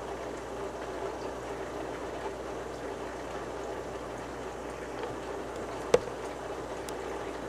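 Steady trickling of water from a hang-on-back aquarium filter's outflow falling into the tank, with one sharp click about six seconds in.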